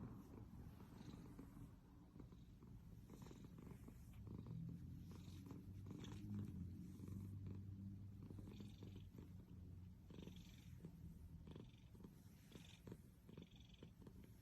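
A domestic cat purring, a faint, steady low rumble.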